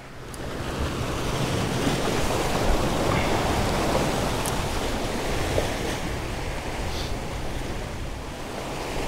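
Waves breaking and washing against the jetty's granite rocks, swelling over the first couple of seconds and then steady, with wind buffeting the microphone.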